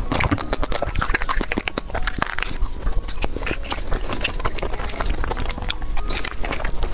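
Fast, close-miked eating: chewing and biting in a dense, continuous run of short clicks and crunches.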